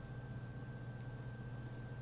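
Steady low electrical hum with a faint high whine, and one faint click about a second in.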